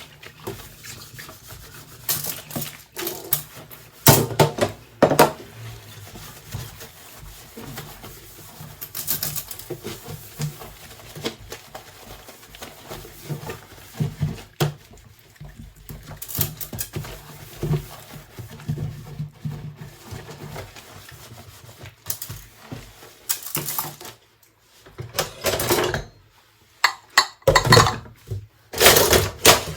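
Dishes and cutlery clinking and knocking against each other at irregular moments as they are handled and washed by hand. There are short bursts of rushing noise near the end.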